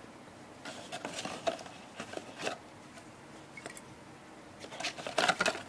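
Parts packaging handled by hand: irregular crinkles, rustles and small clicks, getting busier and louder near the end.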